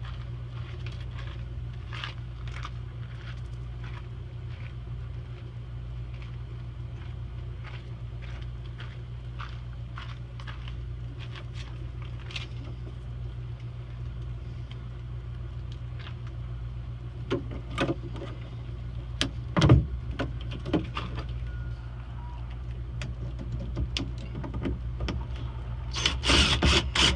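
Irregular clicks, knocks and scrapes of someone moving about and handling things, over a steady low hum. A few louder knocks come about two-thirds through, and a dense scuffling clatter comes near the end.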